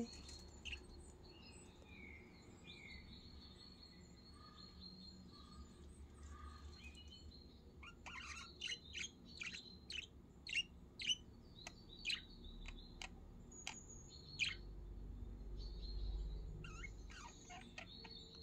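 Pet budgerigars chirping softly. A few soft whistled notes come first, then a quick run of short, sharp chirps through the middle, thinning out toward the end. There is a low rumble a few seconds before the end.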